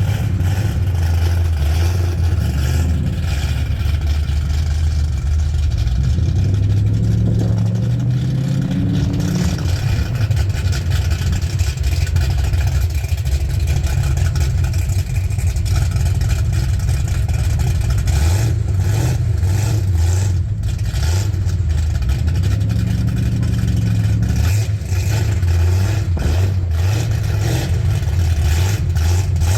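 A 7-liter V8 engine running at idle with a deep steady note, revved up and let back down about seven seconds in and again later on.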